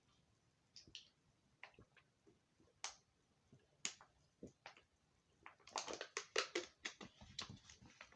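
Faint chewing: scattered sharp mouth clicks and smacks, with a quicker run of them about two-thirds of the way through.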